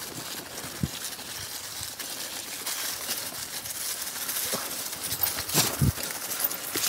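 Mountain bike tyres rolling through fallen leaves on a trail, a steady rustle and crackle, with a few knocks from the bike jolting over bumps, the loudest near the end.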